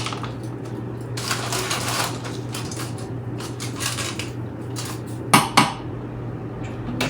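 Dishes and utensils clattering as food is handled, with two sharp clinks about five seconds in, over a steady low appliance hum.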